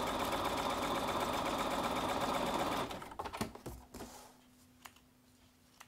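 Electric sewing machine stitching a seam through fabric and a paper foundation, running steadily for about three seconds and then stopping abruptly. A few faint clicks and rustles follow as the piece is handled.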